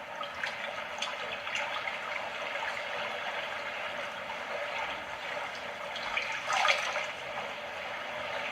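Sea water lapping and sloshing steadily, with a louder splash about two-thirds of the way through.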